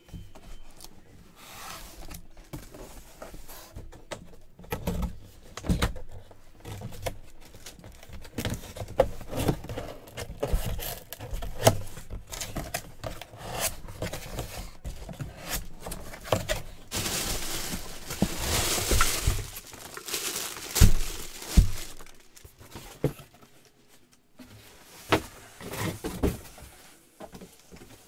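Cardboard helmet box being handled and opened, with repeated knocks, thunks and scrapes, and a replica football helmet in a plastic bag being slid out with crinkling and rustling; the longest rustling stretch comes about two-thirds of the way through.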